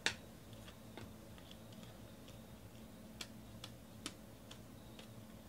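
Faint, scattered clicks and ticks of Panini Prizm football cards being flipped through by hand, one card sliding off the stack after another, with a sharper click at the start.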